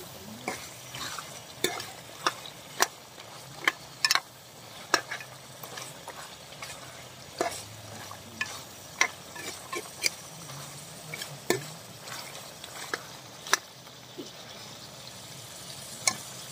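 A metal ladle stirring chukar partridge pieces frying in a metal karahi pot, the ladle clinking and scraping against the pot at irregular moments, one or two times a second, over a steady sizzle of the meat frying in butter with green chillies.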